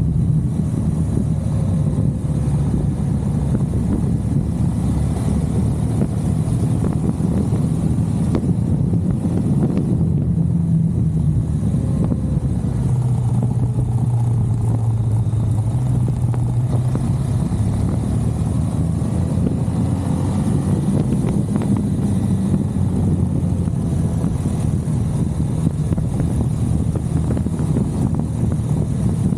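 KTM 390 Adventure's single-cylinder engine running steadily on the move, under a heavy, steady rumble of wind on the microphone. The engine note sits lower for a few seconds around the middle, then comes back up.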